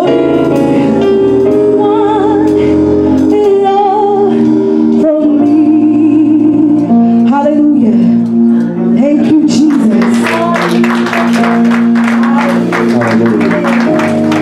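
A woman sings a gospel song through a handheld microphone, holding long notes with vibrato over sustained keyboard chords. About ten seconds in, a fast, regular percussive beat joins the music.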